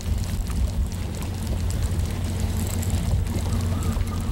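Bass boat's outboard motor running at a steady speed, an even low hum under rushing wind noise.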